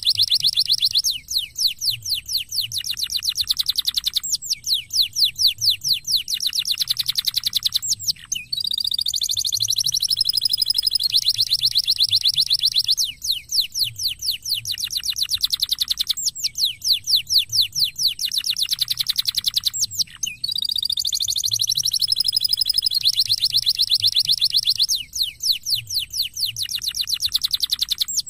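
Domestic canary singing a long, fast song of high rolling trills, phrase after phrase. Some phrases are strings of quick downward-sweeping notes and others are fast even rolls, with brief breaks between phrases every few seconds.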